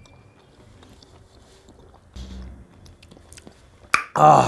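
A person quietly chewing a bite of spiced chicken leg, with faint mouth clicks and a soft low thud about two seconds in. Near the end comes a short, loud appreciative voiced exclamation.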